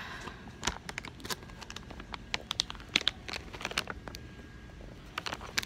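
Plastic packaging of bagged pet food crinkling and rustling as it is handled, in a run of short irregular crackles and clicks.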